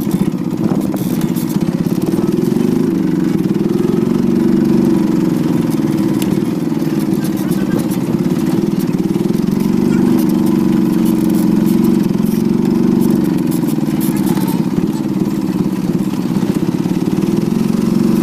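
Vehicle engine running as it drives, heard from inside the cabin, its pitch rising and falling repeatedly as the engine speeds up and slows.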